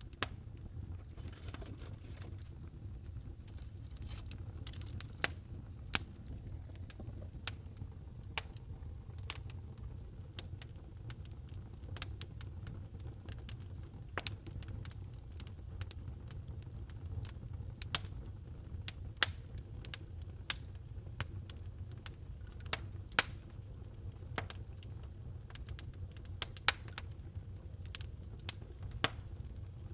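Wood burning in a fireplace: irregular sharp crackles and pops, several a second at times, over a steady low rumble of the fire.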